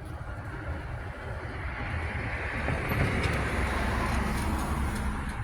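A road vehicle going by: a low rumble with a rushing noise that builds to a peak about halfway through and then slowly eases.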